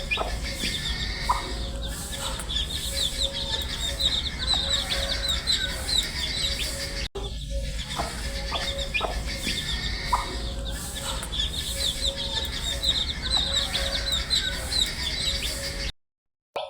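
A brood of baby chicks peeping constantly: many short, high chirps overlapping over a steady low hum. The sound cuts out for about half a second near the end.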